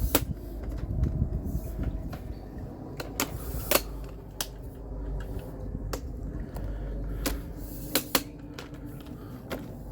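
Handling noise: irregular sharp clicks and knocks, about one a second, as the camera is clipped onto its stand close to the microphone, over a low steady rumble.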